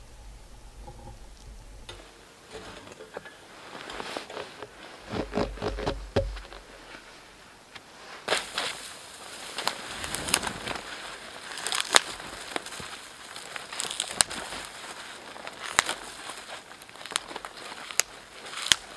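Dry spruce twigs being snapped off by hand: irregular sharp cracks and crackling over the rustle of branches, starting about eight seconds in. A few dull thuds come earlier, around five seconds in.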